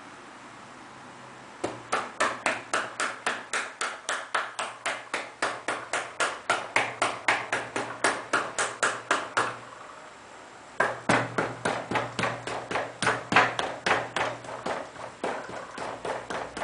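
Rapid, even knocks, about four a second, in two runs of several seconds with a short pause between, a low hum sounding under them; repeated impacts used to shake an ADXL203 accelerometer on a bench.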